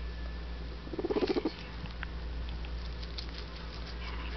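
Guinea pig giving a short, low, purr-like rumble of rapid pulses about a second in, followed by a few faint clicks.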